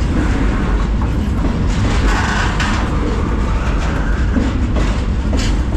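Freight train rolling on the rails, heard from aboard a car: a loud, steady rumble of wheels and cars with scattered sharp clanks.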